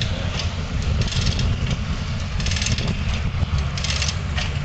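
Steam-powered sawmill running: a steady low mechanical rumble, with short hissing bursts about once a second.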